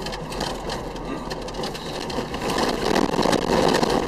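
Vehicle running over a rough road, with engine and road noise and a dense clatter of small knocks and rattles. It grows louder from about two and a half seconds in.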